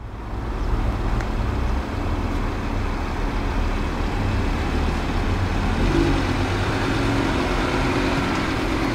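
Audi RS3 Sportback's 2.5 TFSI five-cylinder engine running at idle as the car creeps slowly forward, a steady low engine note with a steady higher drone joining about six seconds in.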